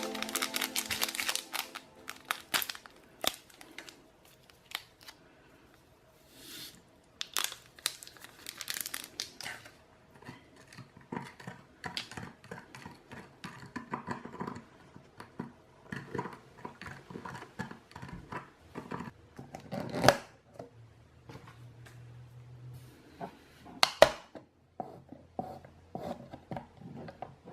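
Plastic candy wrappers and packaging crinkling and tearing as they are handled and opened, in irregular rustles with a couple of sharper snaps.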